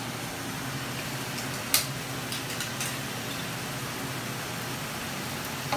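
Pan of chopped vegetables sizzling and steaming on the hob, a steady hiss over a low hum. A sharp click comes a little under two seconds in, with a few lighter ticks just after.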